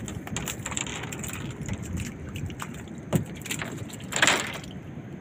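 Nylon cast net being gathered and handled in a small fiberglass boat: rustling mesh and small clicking rattles of its sinker weights, with a single knock a little after three seconds and a short, louder rush of noise about four seconds in.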